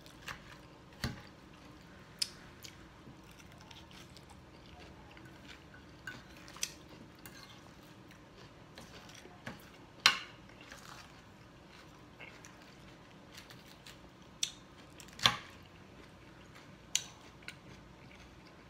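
Metal fork clicking and scraping on a plate as salad is speared, with soft chewing between. The clicks are scattered, and the sharpest come about ten seconds in and again about fifteen seconds in.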